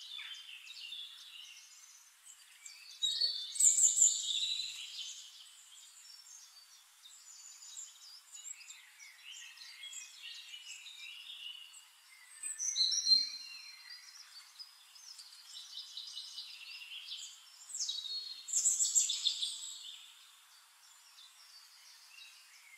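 Several small songbirds singing and chirping in a busy chorus of short, high calls, with louder bursts of song about three to five seconds in, around thirteen seconds, and around nineteen seconds.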